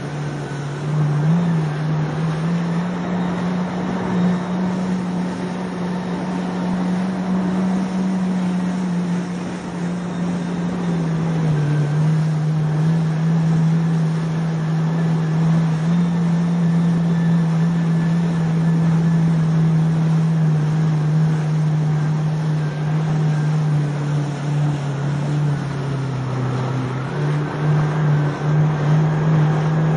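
Jet ski engine running steadily at speed. Its drone shifts a little in pitch with the throttle: it rises a couple of seconds in, drops about ten seconds in, and dips and picks back up a few seconds before the end. Under it is the rush of water spray.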